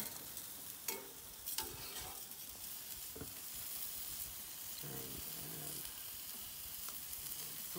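Boneless chicken breasts sizzling on a hot grill, a steady hiss, with a couple of light clicks about a second in.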